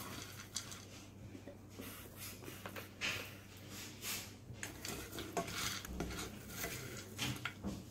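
Plastic serving spoon scraping and knocking against a nonstick saucepan as popped popcorn is scooped out, with light rustles as the popcorn is tipped into a paper cup.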